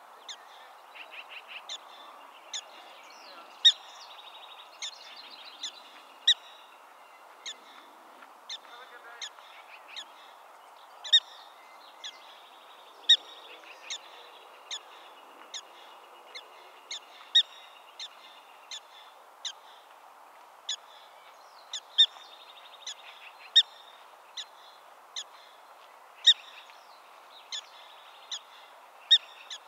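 Black-tailed prairie dog alarm calls: a long run of short, sharp barks about once a second, some much louder than others, over a steady background hiss.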